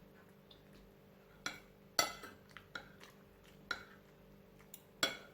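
Cutlery clinking and scraping against a plate while eating: about five short, sharp clinks, the loudest about two seconds in.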